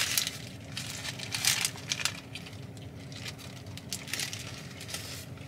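Close-up eating sounds of a bite into a chicken Caesar wrap: crisp romaine crunching and the paper wrapper crinkling in several sharp bursts over the first two seconds, then fainter chewing.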